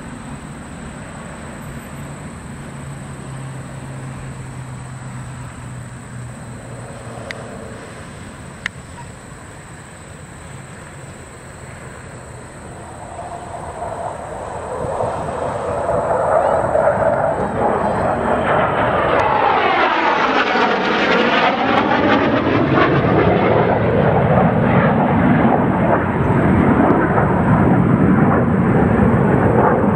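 Jet noise of the Thunderbirds' F-16 fighter jets: a distant steady rumble for the first half, then a jet's noise building from about halfway in to a loud roar, with a sweeping, phasing whoosh around twenty seconds in as it passes.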